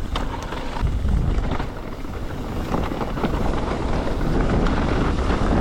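Mountain bike riding fast downhill over dirt and rocks: tyres rolling and chattering, with frequent clicks and knocks from the bike over the bumps, under a steady rush of wind on the microphone.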